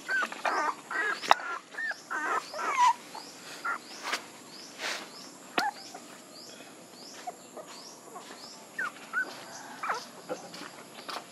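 Young puppies whining and whimpering: a quick run of short, high whines in the first three seconds, then only a few scattered ones, with faint high chirping behind.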